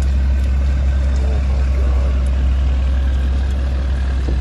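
Vehicle engine running steadily at low revs, a constant low rumble, as a truck tows a large motor yacht on its trailer up the ramp.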